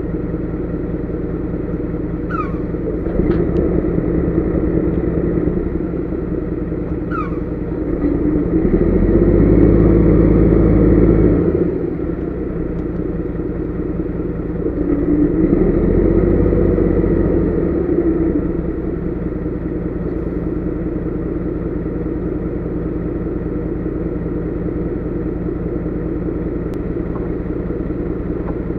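Diesel engine of a low loader truck heard from inside the cab, running steadily at idle. It swells up twice with raised revs, about 8 and 15 seconds in, each for a few seconds before settling back to idle.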